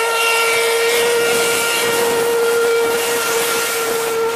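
Steam locomotive whistle blowing one long, steady blast at a single pitch over a loud hiss of steam.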